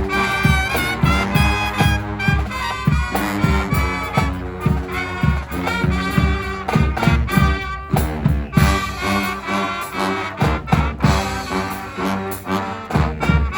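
A live street brass band playing an upbeat instrumental tune: horns carrying the melody over a steady drum beat.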